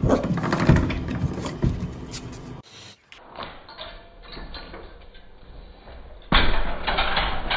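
Puppy pawing and scratching at a wooden cabinet door, making quick knocks and rattles. After a short break come fainter sounds, then a louder, dense stretch near the end.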